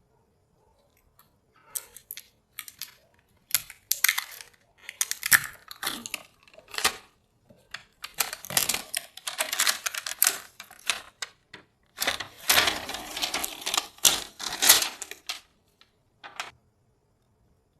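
Hands handling PC parts and packaging: a run of small plastic clicks, taps and rustling, with two longer stretches of steady rustling and scraping in the second half.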